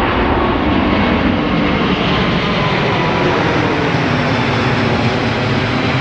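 Jet engines of a large aircraft running at high power, a loud, steady rushing noise.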